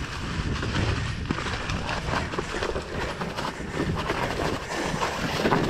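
Mountain bike riding noise on a wet, muddy trail: a steady rumble of wind and tyre noise with scattered rattles and knocks.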